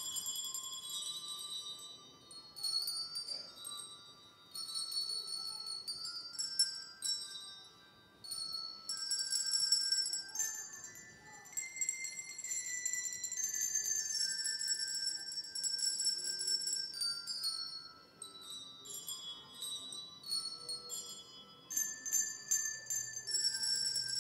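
A children's set of colour-coded handbells played as a melody, each bell rung in turn so the notes ring out one after another and overlap, in phrases with short pauses between them.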